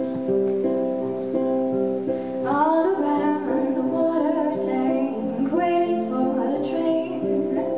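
Ukulele picked in a run of even notes, then a woman begins singing over it about two and a half seconds in.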